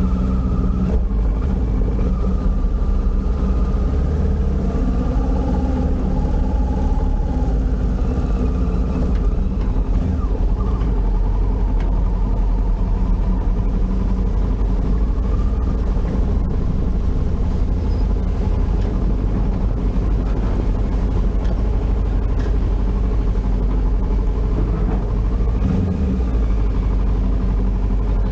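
Big motorcycle's engine running at low speed with a steady low rumble as the bike rides slowly along and up a steel loading ramp.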